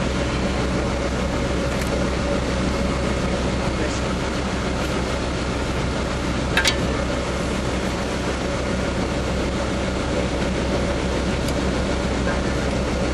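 An engine running steadily with an even, unchanging drone. A single sharp knock comes about six and a half seconds in.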